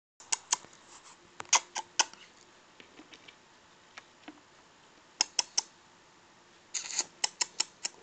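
Budgerigar making short, sharp clicks in quick runs of two to four, with a brief rattling burst near the end.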